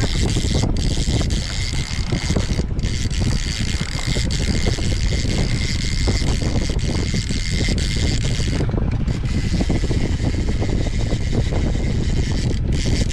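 Steady rumble of wind on the microphone over a boat's outboard engine idling in neutral.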